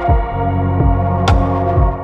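Background music with a steady beat: sustained synth chords over a low kick drum about twice a second, with a sharp hit about a second in.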